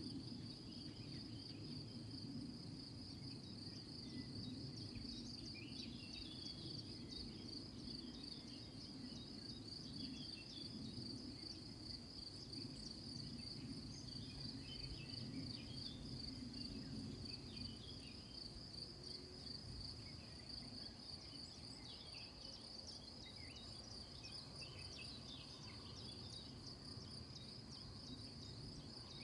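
Crickets trilling in a steady, unbroken chorus at one high pitch, with short scattered chirps over it and a low rumble underneath.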